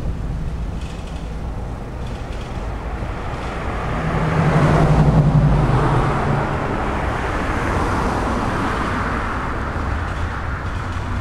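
Freight train of covered hopper cars rolling past close by: a steady low rumble of steel wheels on rail, swelling louder for a couple of seconds near the middle.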